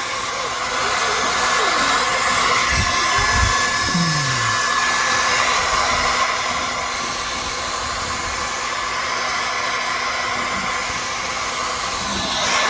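Handheld hair dryer running steadily, blowing hot air, a constant rushing hiss with a faint whine in it.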